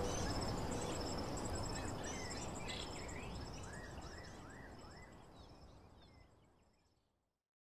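Nature ambience of insects trilling in rapid high chirps and birds chirping over a steady background hiss, fading out to silence about seven seconds in.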